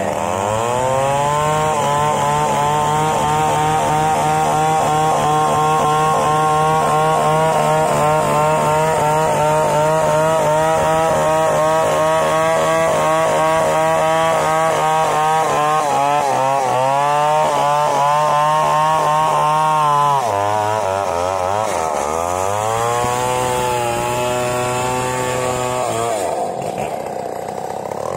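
Large two-stroke chainsaw of the Stihl 070 type ripping lengthwise along a log to saw boards, its engine held at steady high revs under load. About two-thirds of the way through, the revs drop and surge several times, then ease off briefly near the end before rising again.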